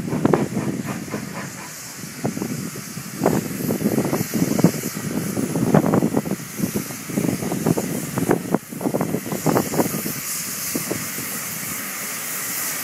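Two steam tank locomotives, the LB&SCR Terrier Stepney leading No. B473, working a train in at low speed: slow, uneven exhaust beats from the chimneys over a steady hiss of escaping steam.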